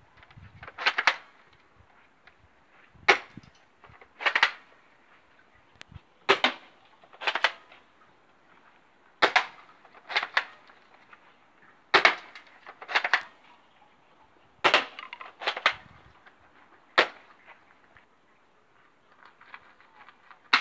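BB rifle shooting: six sharp cracks about every three seconds. Each crack is followed about a second later by a short clattering rattle.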